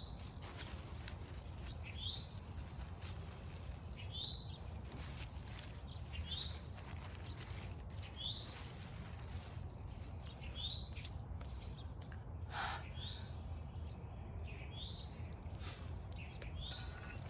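A bird repeats a short rising chirp about every two seconds over a low steady outdoor background, with a few faint clicks.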